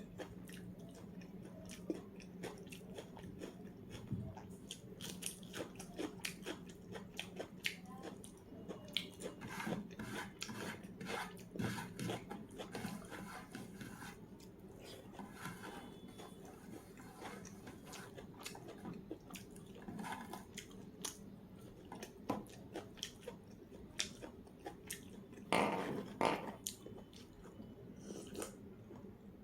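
A person chewing food close to the microphone, with many small crunches and wet mouth clicks. There is a louder, longer noise about 26 seconds in.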